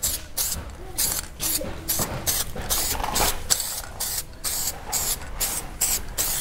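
Aerosol can of Diton Dashboard Coating sprayed in short, quick hissing bursts, about three a second, onto a plastic mirror housing.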